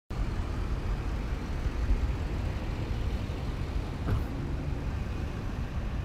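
Outdoor parking-lot ambience: a steady low rumble, with a short knock about four seconds in.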